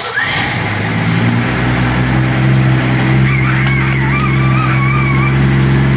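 Ford Bronco's engine running steadily with a low, even hum, with a faint wavering high tone over it about three seconds in.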